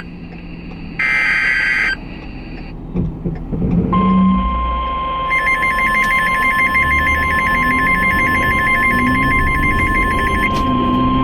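Weather radio emergency alert: the last two short warbling SAME data bursts of the alert header, then after a pause a long steady 1050 Hz weather radio alert tone, joined in the middle by a fast two-pitch warbling alarm. Together they signal that a new severe thunderstorm warning is coming in.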